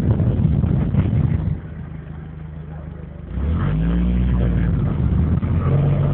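A boat's engine running, easing off for a couple of seconds and then revving back up about three seconds in to run steadily again.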